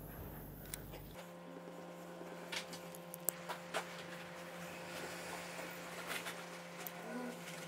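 Faint steady hiss of a small handheld gas torch's blue flame heating plastic, with a few light ticks scattered through.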